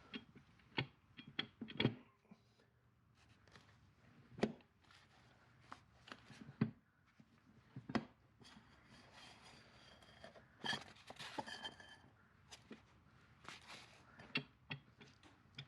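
Irregular clicks and clunks of metal parts being handled as a clutch pack is worked onto a DL501 transmission's input shafts. A cluster of clanks about eleven seconds in rings briefly.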